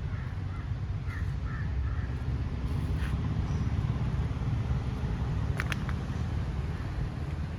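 Outdoor garden ambience: a steady low rumble with birds calling over it, a few short chirps in the first second or so and a brief sharp call a little after halfway.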